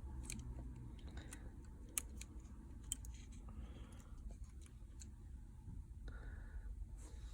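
Faint, scattered clicks and taps of small precision repair tools against the tiny Face ID parts and screen frame of an iPhone XR, over a low steady hum.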